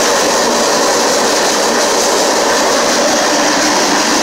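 Freight train rolling along, heard from the open end platform of a moving freight car: a loud, steady noise of steel wheels running on the rails.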